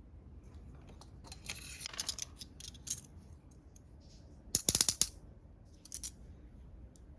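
Apple product box being opened by hand: light rustling of paper and plastic packaging, then a loud quick run of crackles about two-thirds of the way in, like a pull-tab or wrapping being torn off, and a smaller crackle shortly after.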